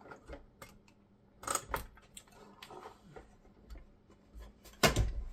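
Scattered clicks and taps of plastic and metal parts being handled and fitted inside an Xbox Series X console during reassembly, with a louder clatter about a second and a half in and a sharp knock near the end.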